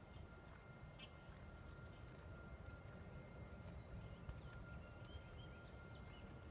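Near silence: faint outdoor ambience with a low rumble, a thin steady high tone and a few short, faint bird chirps.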